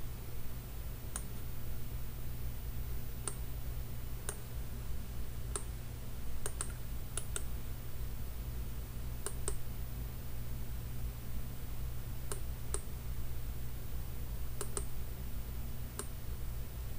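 Wireless computer mouse buttons clicking: about fifteen sharp, irregular clicks, several in quick pairs, over a steady low hum.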